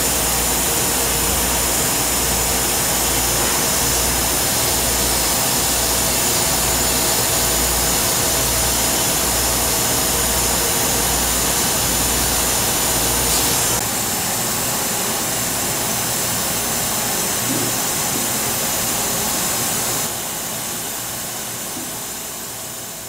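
Prima Platino 2040 CO2 laser cutter cutting sheet steel: a steady loud hiss of machine and cutting noise, with a low pulsing throb for the first part. The sound drops abruptly about 14 seconds in and again about 20 seconds in, then fades out near the end.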